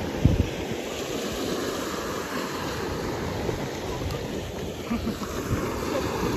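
Gulf of Mexico surf washing and breaking on the beach in a steady rush, with wind buffeting the microphone in low rumbles about a quarter-second in and again around five seconds.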